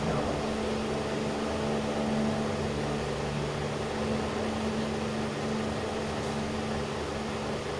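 A steady low mechanical hum with constant droning tones and an even hiss, like a room fan or air-conditioning unit running.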